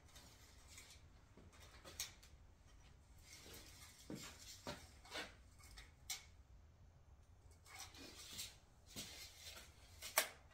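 Faint clicks and scrapes of a tape measure being handled along a PVC pipe while a length is measured and marked, with a sharper click near the end.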